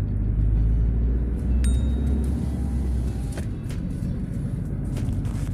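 A vehicle on the move: a low, steady road rumble. A short, thin high tone sounds about one and a half seconds in.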